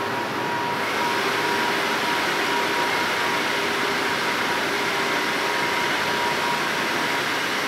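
Steady rushing of electric air blowers keeping the inflatable target boards inflated, with a faint steady hum under the air noise; it gets slightly louder about a second in.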